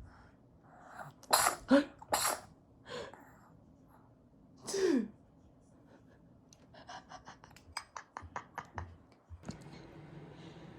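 A fit of sneezes set off by eating yogurt: three sharp sneezes in quick succession about a second in, another near three seconds, and a louder one with a falling pitch near five seconds. A quick run of small clicks follows.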